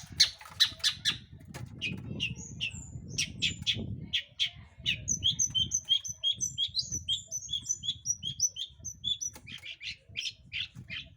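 Long-tailed shrike (cendet) singing in full voice: harsh, scratchy calls at first, then from about five seconds in a run of quick repeated whistled notes, about three a second, then harsh calls again near the end.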